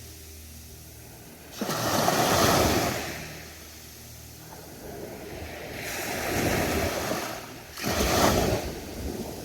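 Ocean surf on a beach: waves breaking and washing in, a loud break about one and a half seconds in, a softer one around the middle, and another sudden break near the end, with a low wash between.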